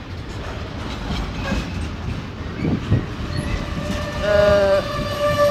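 Freight train of bogie hopper wagons rolling past close by: a steady rumble with wheels knocking over rail joints. About four seconds in, a short ringing tone rises above the rumble.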